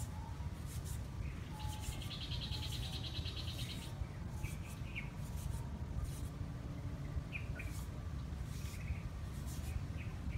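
Small birds chirping in short calls, with a rapid trill from about one to four seconds in, over a steady low rumble and scattered faint clicks.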